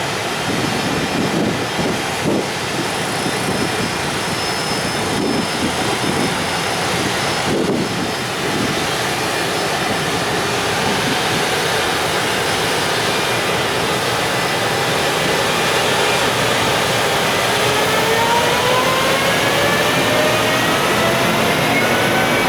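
JR Freight EF510 electric locomotive hauling a container freight train away from a station: a steady loud roar, with the traction motors' whine rising in pitch from about two-thirds of the way in as the train gathers speed.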